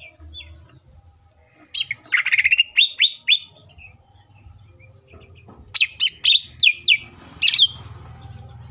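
Green leafbird (cucak ijo) singing two loud runs of sharp, quick notes that slide downward, five or six notes to each run. The first run comes about two seconds in and the second about six seconds in.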